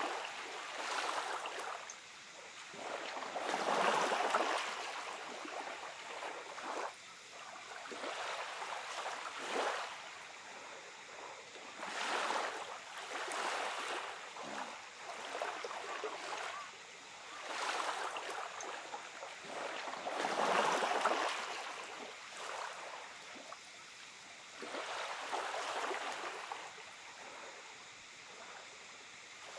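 Small, gentle sea waves lapping onto the shore. Each wash swells and fades, one every three to five seconds.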